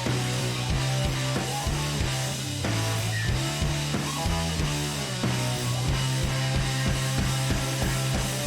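Background rock music with electric guitar, bass and drums at a steady beat.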